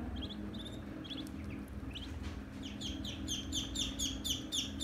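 Ducklings peeping: a few short, high peeps at first, then from about halfway a quick run of falling peeps, about four a second, growing louder toward the end.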